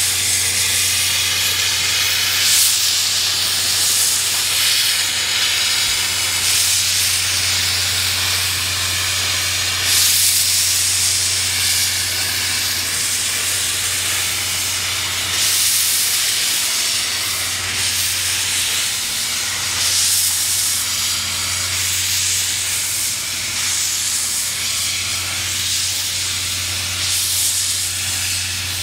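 Steam locomotive, the C56 160, hissing steam steadily, the hiss swelling every few seconds, over a constant low hum.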